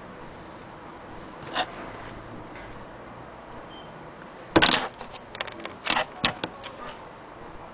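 A vintage Olympia Elite typewriter and its case being handled: a few irregular mechanical clicks and clacks, the loudest about four and a half seconds in, with more about a second and a half later.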